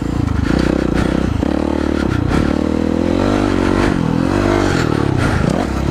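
Kawasaki KX450F single-cylinder four-stroke motocross engine under way on a dirt track, heard on board from the rider's helmet. The revs climb and fall with the throttle, dropping off sharply near the end before picking up again.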